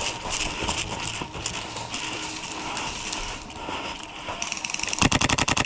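Footsteps crunching and knocking irregularly as a player moves quickly over rough ground. About five seconds in, an airsoft gun fires a rapid full-auto burst of evenly spaced shots, the loudest sound in the clip.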